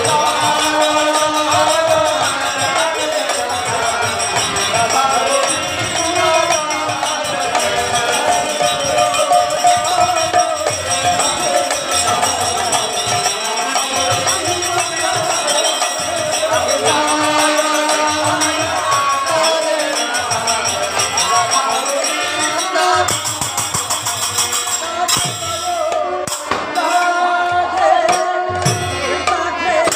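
Live harinam sankirtan: a harmonium and voices singing a devotional kirtan, kept in time by a khol drum and constantly jingling hand cymbals. The cymbal jingle thins out about two-thirds of the way through.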